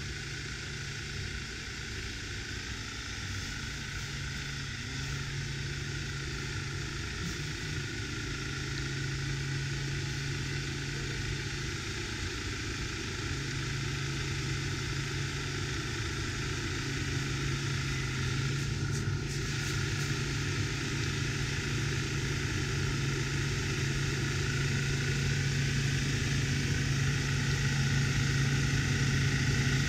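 Land Rover Discovery TD5's five-cylinder turbodiesel engine running steadily under load as it churns through deep snow, growing louder as it approaches.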